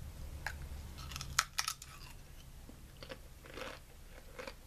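Crunching and chewing a mouthful of baked bean chips (Beanitos), with a few sharp crunches about a second and a half in, then quieter chewing.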